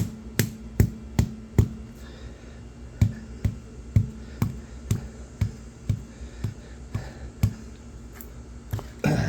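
Sharp taps repeating at an even pace, about two to three a second, over a faint steady hum.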